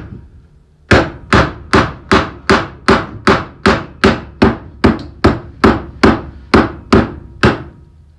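A hammer drives a pin into a VW Beetle pedal cluster. It lands a steady run of about eighteen sharp strikes, roughly two and a half to three a second, starting about a second in.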